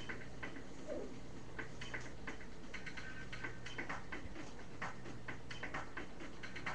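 Light, irregular clicking of computer keys, a few clicks a second, over a steady low electrical hum.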